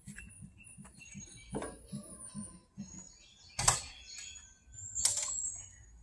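Knocks and footsteps of a person climbing onto a Cat 299D3 XE compact track loader whose engine is off. Two sharp knocks stand out, about three and a half and five seconds in, while birds chirp.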